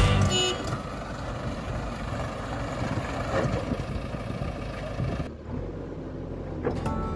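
A motor vehicle's engine running steadily, a noisy rumble with no clear rhythm; the sound turns duller about five seconds in.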